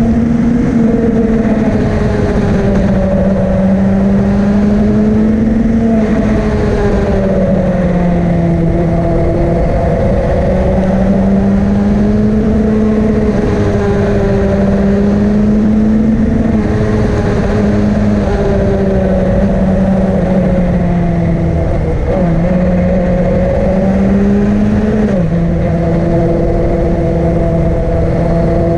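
A vehicle engine pulling steadily up a mountain climb, its pitch rising and falling with the throttle. Its pitch drops suddenly twice near the end as it shifts gear.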